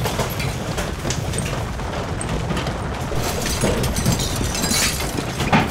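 Earthquake rumble: a steady deep rumble with repeated rattling and clattering of kitchen things, and a louder crash near the end.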